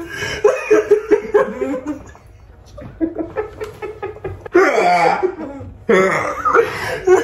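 Two people laughing hard in uneven bursts, dipping quieter about two seconds in, then breaking into a loud burst of laughter about halfway through.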